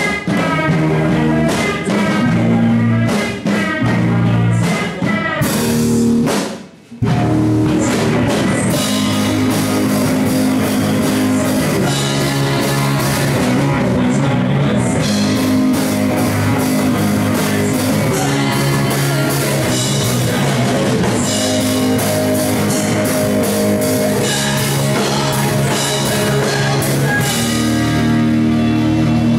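Live rock band playing, with electric guitar and drum kit. The music cuts out briefly about seven seconds in, then starts again.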